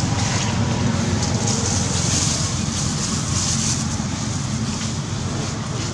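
Steady outdoor background noise: a low rumble with a high hiss over it that swells and fades.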